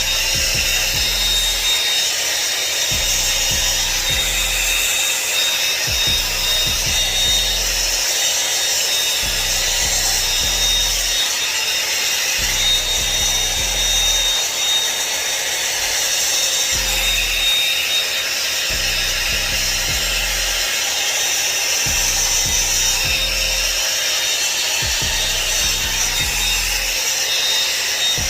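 Revlon One-Step hair dryer brush running steadily on hair: a constant rush of air with a thin, high motor whine.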